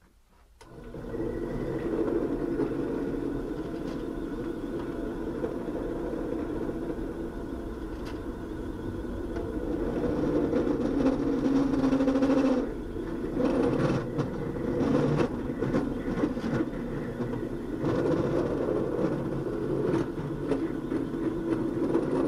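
Benchtop drill press switched on about half a second in, its motor running steadily while the bit cuts into a wooden workpiece pushed against it. The loudness and tone waver as the cut loads the bit, with small clicks in the second half.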